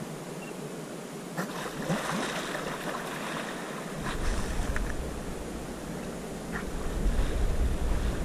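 Sea water splashing and sloshing around a kayak riding on a light swell, with wind rumbling on the microphone from about four seconds in.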